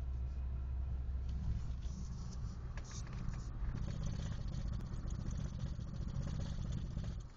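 A 1993 BMW E36 being driven, its engine and road noise steady, with a rapid rhythmic knocking setting in about halfway through. The knock is an unexplained thump and vibration that comes in above 2,000 to 3,000 rpm in any gear, which the owner wonders may come from a wheel.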